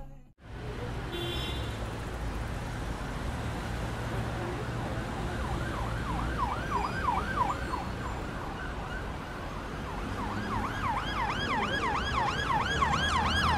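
Emergency vehicle siren in a fast yelp, sweeping up and down about four times a second. It starts about six seconds in, breaks off briefly, then comes back about ten seconds in and grows louder, over a steady low background rumble.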